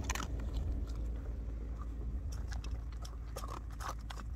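Dog crunching dry kibble, irregular crisp crunches that come thicker in the second half, over a low steady rumble.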